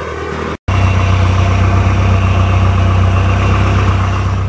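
Nissan 240SX's 2.4-litre four-cylinder engine idling steadily, heard from under the car at the exhaust, after a momentary gap under a second in. The catalytic converter and exhaust have been gutted after the converter broke up and clogged it, and the exhaust doesn't seem to be leaking.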